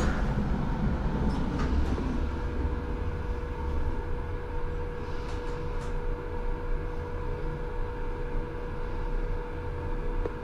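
Toshiba passenger elevator car travelling upward: a steady low rumble, joined about two seconds in by a steady hum.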